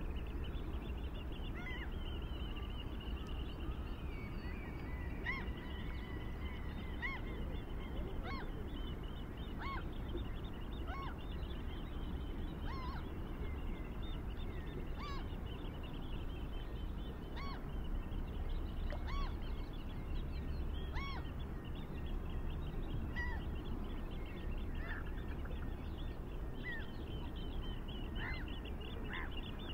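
Outdoor ambience with a steady low hum and a bird chirping over and over, about once every one to two seconds, over fainter bird chatter.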